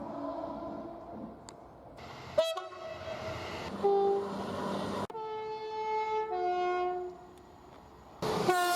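Several British train horns, one after another, in short clips that cut abruptly into each other. A loud blast starts suddenly about two and a half seconds in, then comes a short blast. Two-tone horns sound a high note then a lower note around five to seven seconds, and another loud horn starts near the end.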